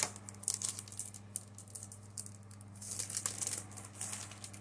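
Rustling and crinkling of a comic book's packaging and cardboard as it is handled and slid out, coming in bursts about half a second in and again about three seconds in, over a steady low hum.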